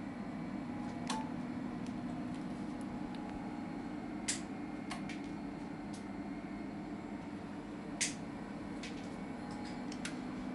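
A steady low hum from a 1200 W MRF1K50H HF linear amplifier setup running during a 20-metre band test, with about seven sharp, isolated clicks scattered through it.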